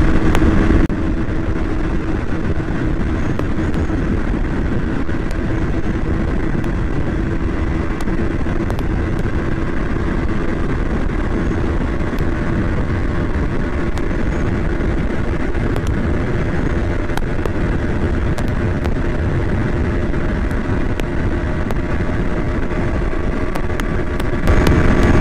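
KTM Duke 200's single-cylinder engine running flat out in sixth gear, pulling toward its top speed, under a steady heavy rush of wind on the microphone.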